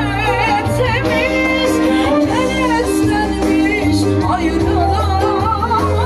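Live Turkish folk band music, instrumental: a quavering, ornamented lead melody over a steady low bass.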